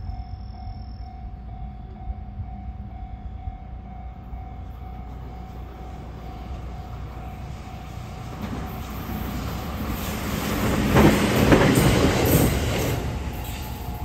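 521 series electric train approaching and passing, its wheels and running noise building from about eight seconds in and loudest around eleven to thirteen seconds in. Behind it, a steady level-crossing warning tone sounds throughout.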